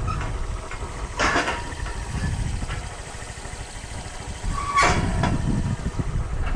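Honda Lead 125 scooter on the move: its single-cylinder engine running under a steady low rumble of wind on the microphone, with two short loud rushes about a second in and near five seconds.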